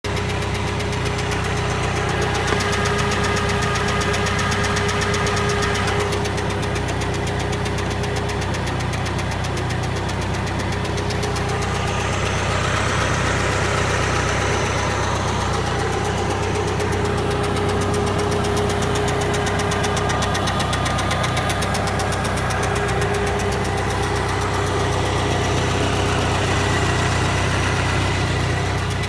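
BMW K100RT's flat-laid inline-four engine running steadily, with a fast, even ticking over the engine note and a faint whine that comes and goes. This is the strange noise whose cause the owner does not know.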